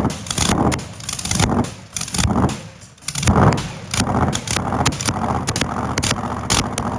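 V8 engine revved in a series of short blips, crackling sharply, dropping off about three seconds in and then settling into steadier running near idle.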